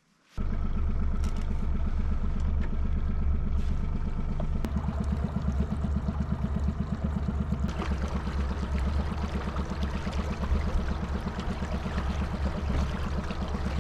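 Boat motor running steadily with a fast even pulse, cutting in abruptly about half a second in.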